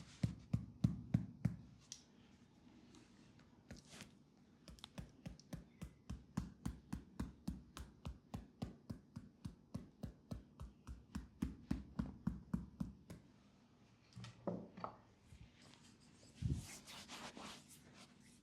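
Quick rhythmic hand strikes on a person's leg, about four a second, as in a fast percussive tapping massage. The tapping stops, and hands rub and scrub on the skin near the end.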